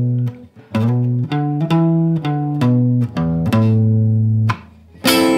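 Guitar playing a single-note riff: a run of plucked notes with slides between frets, then a long held low note. A chord is strummed near the end and rings on.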